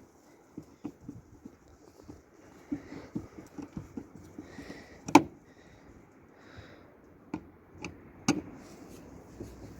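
Scattered light clicks and knocks of tools and parts being handled while a dishwasher is taken apart, with two sharper knocks, about five and eight seconds in.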